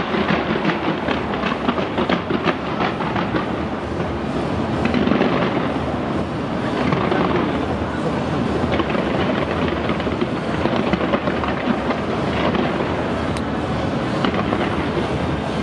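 Fireworks launched from the sides of the Taipei 101 skyscraper going off in a continuous barrage: dense, rapid crackling and popping over a steady rumble, with no pause.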